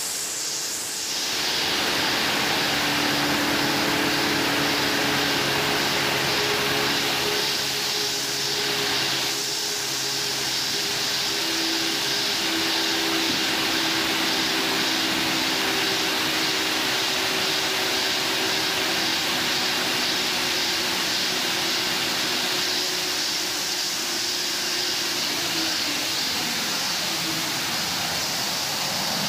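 Automatic BOPP tape slitting and rewinding machine running, a steady hiss with several motor hum tones over it. The machine grows a little louder a second or two in, and some of its tones drop in pitch near the end.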